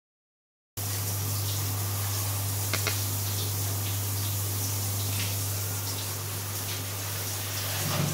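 Water spraying onto a small dog's coat during its bath, a steady hiss over a low hum, starting suddenly under a second in.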